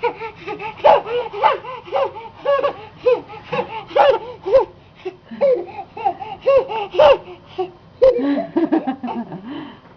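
A baby laughing in a long run of short, high-pitched bursts, about two a second.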